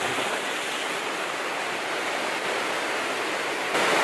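Steady rush of a mountain stream and waterfall pouring into a rock pool. It grows louder near the end.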